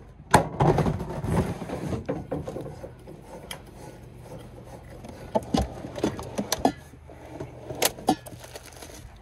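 Camping gear being handled on a pickup tailgate: a sharp knock about half a second in, then a stretch of rustling and scraping, then scattered clicks and knocks. The sources are a plastic storage tote, a green propane cylinder being fitted to a camp stove, and rummaging in a utensil drawer.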